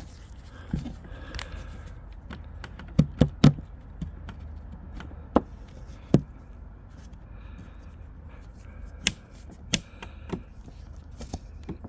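Scattered sharp taps and knocks on wood, loudest as a quick cluster of three about three seconds in, over a low steady hum.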